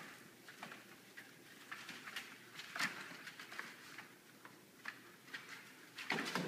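Pit bull puppies scuffling and tumbling in wood shavings in a plastic kiddie pool: irregular light rustles and clicks of paws and shavings, busier and louder near the end.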